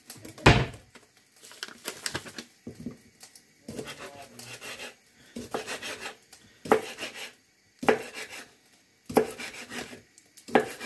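Kitchen knife knocking on a wooden cutting board as garlic cloves are cut, in irregular strokes with small handling clatter between. A loud knock comes about half a second in, and several sharper knocks follow in the second half.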